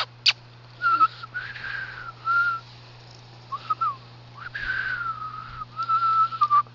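A person whistling in short, airy phrases around one pitch, the notes wavering and sliding slightly, with pauses between. There is a sharp click just after the start.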